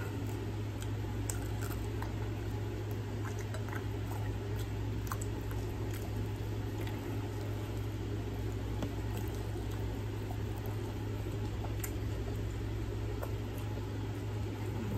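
Faint wet chewing and mouth clicks from a person eating fried chicken by hand, over a steady low hum.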